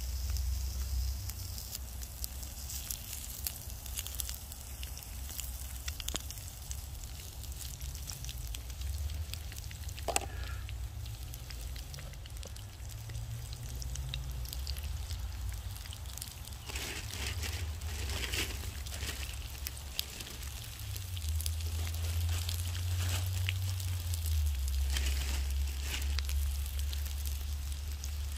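Wood fire crackling in a wood-burning stove, with irregular sharp crackles and a louder pop about ten seconds in, over a low steady rumble.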